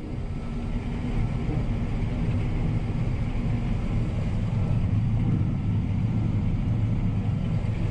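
John Deere T670i combine harvester running steadily under load while cutting winter oats, a continuous low engine and threshing rumble heard from inside the cab.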